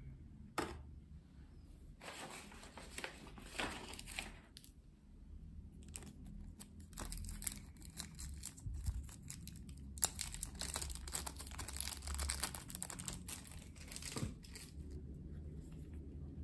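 Clear plastic bag crinkling and crackling in the hands as a lump of plasticine is worked out of it, in two long stretches with a pause between, after a single sharp click about half a second in.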